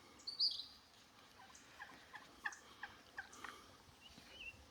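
Turkeys gobbling and calling faintly, short falling notes scattered through, bunched together in the middle, with a brief high whistled bird note about half a second in and another near the end.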